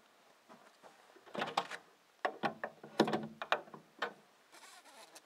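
A wooden window being unlatched and opened: clicks and knocks from its handle and frame, in short clusters starting about a second and a half in and ending about four seconds in.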